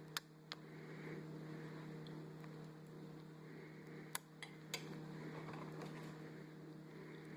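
Small plastic toy pieces being handled, giving a few sharp clicks and taps, two near the start and three about four seconds in, over a steady low hum.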